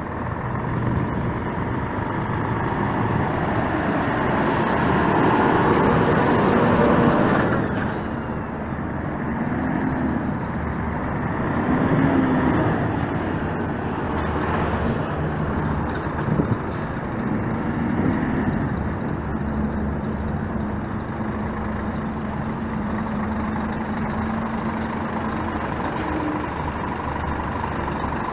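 Scania P 360 tractor units' diesel engines running as trucks drive slowly past at close range. A loud hiss of air from about 4 to 8 seconds in is typical of the air brakes.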